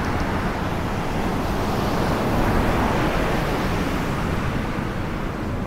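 Steady rushing noise of surf and wind buffeting the microphone.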